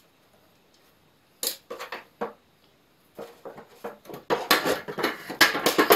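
Metal shroud of a Robland X-31 jointer's cutterhead assembly clanking and rattling as it is worked loose and lifted off. A few separate clicks come about a second and a half in, then dense metallic rattling for the last three seconds.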